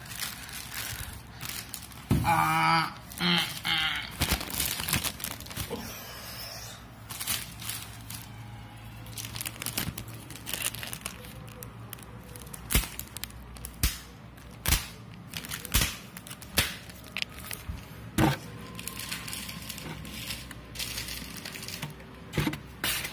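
Clear plastic packaging bag crinkling and tearing as it is cut open with a knife, with irregular sharp crackles and snaps throughout.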